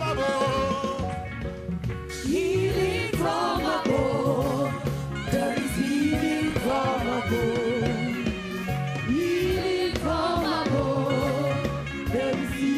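Gospel worship song: voices singing a wavering melody over a band with a steady bass line.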